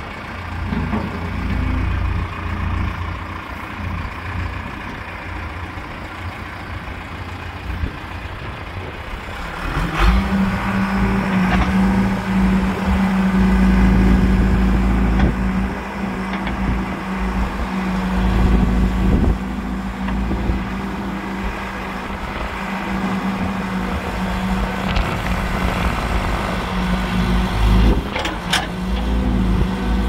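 John Deere 410G backhoe loader's diesel engine running, rising to a higher steady speed about ten seconds in while the backhoe boom and stabilizers are worked. A few sharp clunks, one about ten seconds in and another near the end.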